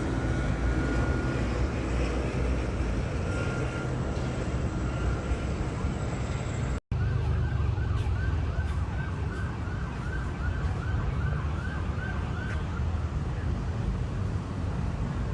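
Emergency vehicle siren in a fast yelp, short rising wails about three a second, sounding for about five seconds after a brief cut in the audio, over a heavy low rumble. Before the cut, only a faint steady siren-like tone is heard.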